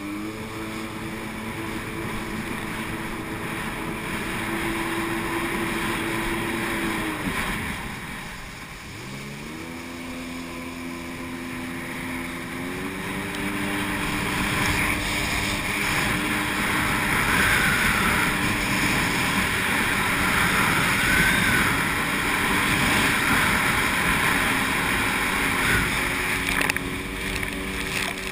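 Sea-Doo personal watercraft engine running at speed over water, with the hiss of spray and wind. About seven seconds in the engine note falls away, then climbs back up over the next few seconds, and the spray and wind noise grows louder through the second half.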